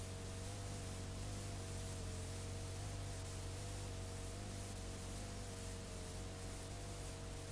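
Steady hiss and low hum from videotape playing back a blank, unrecorded stretch, with two faint, slightly wavering tones underneath.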